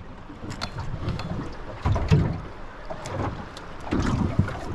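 Irregular knocks and clunks of gear being handled in a small aluminium boat, a few heavier thuds among lighter clicks.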